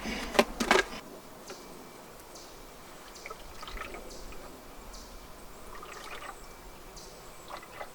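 A few sharp knocks from hive equipment being handled in the first second, then faint, patchy dripping and trickling of sugar syrup from a hive feeder.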